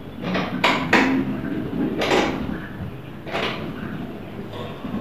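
Metal scissor-arm microphone boom stand being bent and adjusted by hand: about five short creaks and scrapes from its joints and springs.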